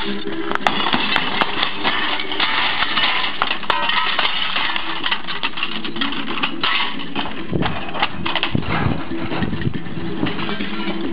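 Glass being knocked out of old window frames with a hammer: repeated sharp knocks and the clink and tinkle of glass shards falling and breaking, over a steady low hum.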